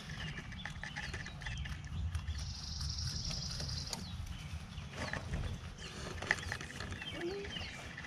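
Young rabbits nibbling and chewing leafy greens: a run of faint, irregular crunching clicks.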